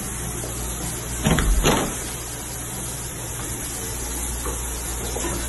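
Steady hiss of water running from a bathtub tap, with two loud thumps close together about a second and a half in.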